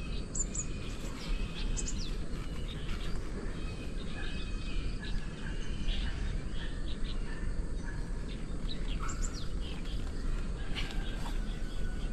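Small birds chirping and calling in short high notes, scattered throughout, over a steady low rumble.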